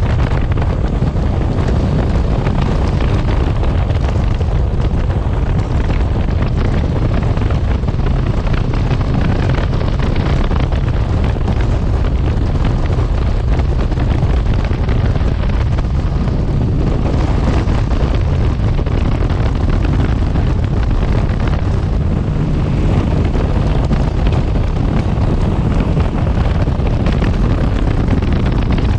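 Motorcycle riding at speed: steady engine and road noise under heavy wind buffeting on the microphone.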